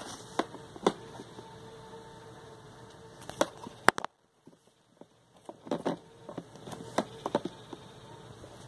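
Scattered clicks and knocks of a phone and plastic toy guitar being handled, over a faint steady electronic hum; the sound drops to near silence for about a second and a half midway.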